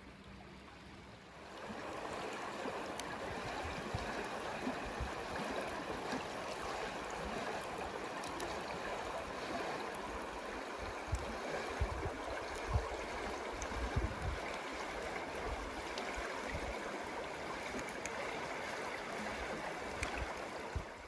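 A stream of running water flowing steadily. It starts about a second and a half in and cuts off suddenly near the end, with a few low thumps in the middle.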